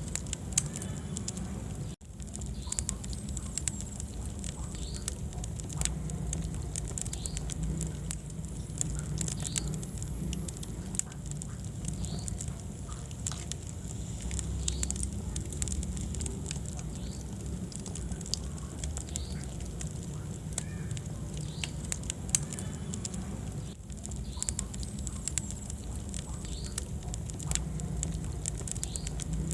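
Wood fire burning in a fireplace: steady crackling with frequent sharp pops over a low rumble of the flames.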